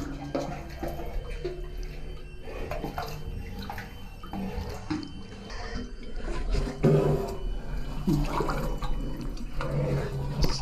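Water sloshing and splashing irregularly as a caver floats and pushes through a flooded cave passage, close to the water's surface.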